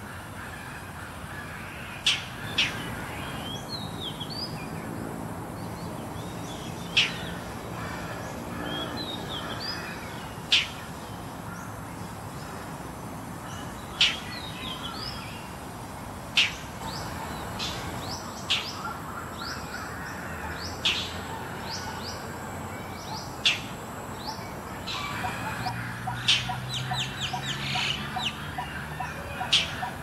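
Indochinese roller giving its harsh, scolding calls: short sharp notes every few seconds that come more often in the second half. Fainter chirps of small birds sound between them, and a quicker run of lower repeated notes starts near the end.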